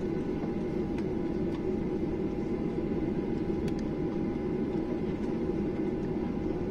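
Cabin noise inside a Boeing 737-800 taxiing: the steady low rumble of its CFM56 turbofans at low thrust and the cabin air, with a faint steady whine above it and a couple of soft clicks.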